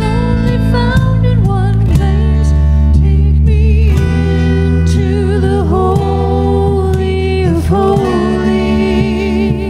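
A live worship band playing a song: singing over acoustic guitars, with long held bass notes underneath.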